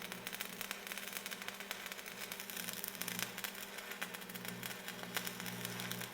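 Rapid, dense clacking of keys being typed on a custom mechanical keyboard, with a steady low hum underneath.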